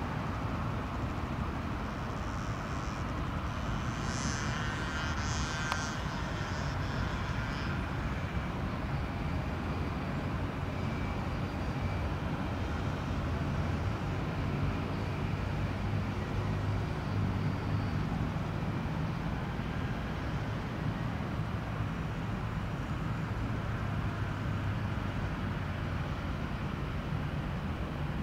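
Airbus A319 jet engines at low taxi thrust as the airliner taxis after landing: a steady rumble with a low hum, and a faint whine that rises and falls a few seconds in.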